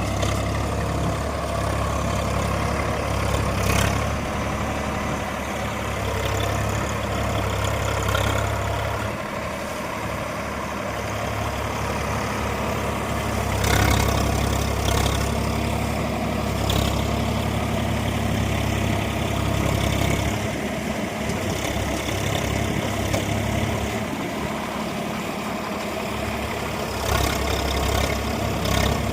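Swaraj 855 FE tractor's diesel engine running steadily, with a few sharp knocks or clanks at intervals.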